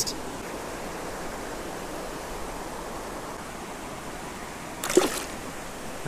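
Steady rush of flowing river current, with a brief splash about five seconds in as the released fallfish goes into the water.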